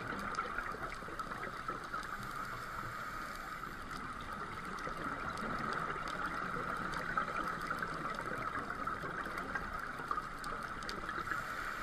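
Underwater ambience picked up by a diving camera: a steady, even hiss with scattered faint clicks.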